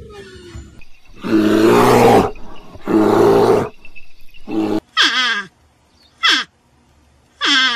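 A big cat roaring twice, each roar rough and about a second long, followed by three shorter cries that fall in pitch.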